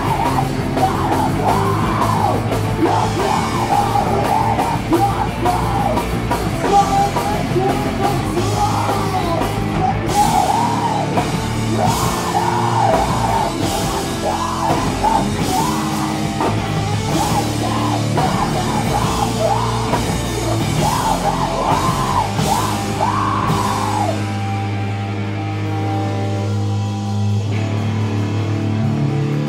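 Heavy rock band playing live and loud: distorted guitars, bass and drums with crashing cymbals under a vocalist's singing. About 24 seconds in the vocals and drums drop out, leaving held guitar and bass notes ringing.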